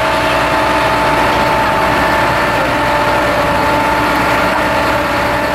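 A vehicle engine idling steadily, with a constant high whine over the running noise.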